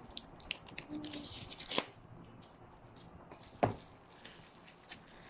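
Album packaging being handled and unpacked: paper and plastic crinkling and rustling, with two sharper knocks, one about two seconds in and one near four seconds.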